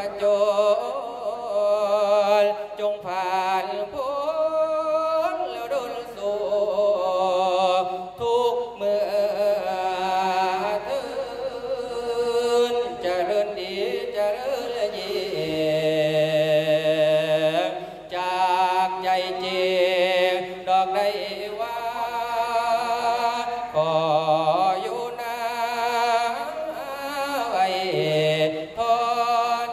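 A male mor khwan chanting the Isan-style su khwan blessing through a microphone. He sings in long melodic phrases of held notes with a strong wavering vibrato, pausing briefly between phrases.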